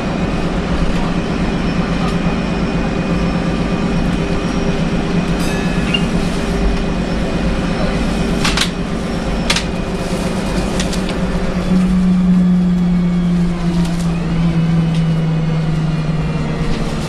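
Interior running noise of a VDL SB200 single-decker bus under way: a steady drone of diesel engine and drivetrain with road noise, and a couple of sharp rattles or knocks about halfway through. In the last few seconds a strong whine comes in and falls slowly in pitch as the bus slows down.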